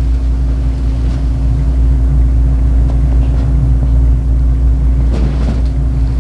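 A steady, loud low hum with a constant tone running under it, broken by a few faint clicks.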